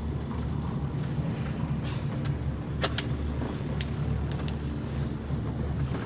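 Steady low drone of a crab boat's engine heard inside the wheelhouse, with a few light clicks between about two and four and a half seconds in.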